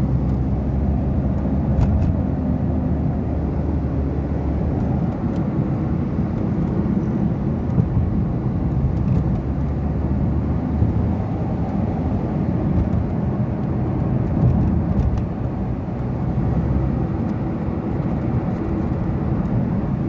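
Suzuki car on a test drive: steady engine and road noise. The engine runs evenly without misfiring, its loose 14 mm spark plugs replaced with the correct 16 mm ones.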